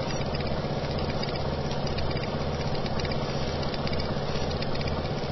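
Steady machine-like running sound: a low, slightly pulsing hum with a fine clatter of light ticks over it.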